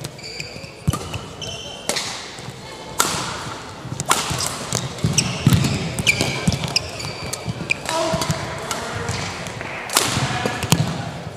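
Badminton rally: rackets striking the shuttlecock with sharp cracks about once a second, with shoes squeaking on the court mat between shots.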